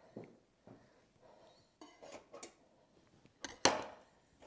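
Wire roasting rack knocking and clinking against the roaster's metal pan as a roasted turkey is lifted out on it: a few faint knocks, then one louder clatter about three and a half seconds in.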